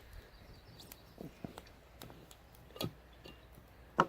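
Light, scattered clicks and taps of a metal water canteen and cup being handled, with one sharper knock about four seconds in.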